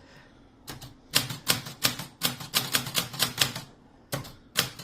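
Olympia Traveller de Luxe portable manual typewriter being typed on: uneven key strikes, about three a second, starting a little under a second in, with a short pause near the end before more strikes.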